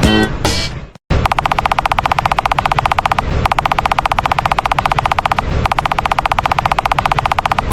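A very fast, even train of pulsing tone, too quick to count, in three stretches of about two seconds each. It starts after the preceding musical sound cuts out about a second in.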